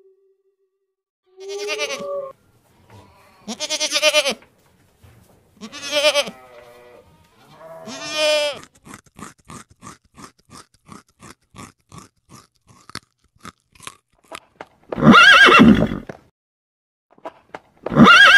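Four wavering animal calls, then a run of quick crunching clicks at about three a second, then two loud horse whinnies near the end.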